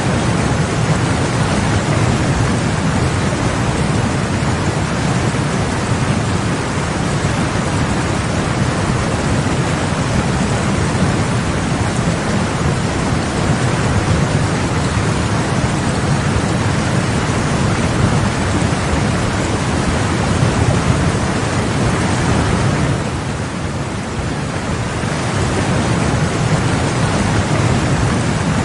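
River rapids running with a steady, loud rush of white water, heavy in the low end. The rush eases briefly about 23 seconds in, then returns.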